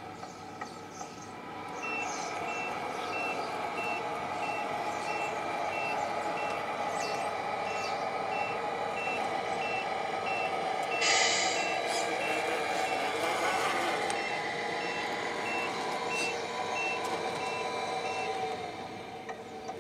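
Tamiya Scania 770S 1/14 RC truck's MFC-03 sound unit sounding its reversing beeper, an evenly repeated high beep about twice a second, as the truck backs its trailer. Underneath is a steady whine from the new electric drive motor, which is a little noisy, with a short hiss about eleven seconds in.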